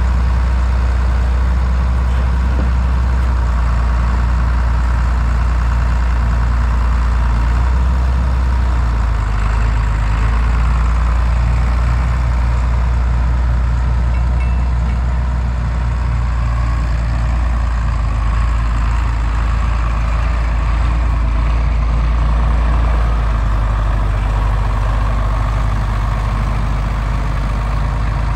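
John Deere 4430's six-cylinder turbocharged diesel running steadily at low speed as the tractor drives slowly. The engine note shifts slightly about a third of the way in and again near the end.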